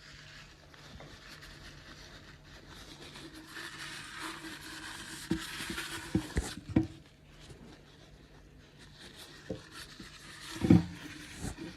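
A steady low hum with a hiss that builds and then cuts off about halfway through, and a series of sharp knocks and clunks, the loudest near the end.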